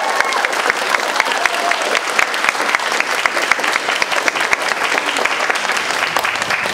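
Audience applauding, a dense patter of many hands clapping, as the song's last notes fade out in the first second or so.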